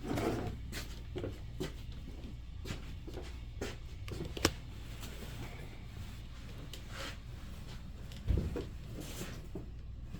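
Scattered small clicks and knocks of objects being handled, with one sharp click about four and a half seconds in and a heavier thump a little after eight seconds, over a steady low hum.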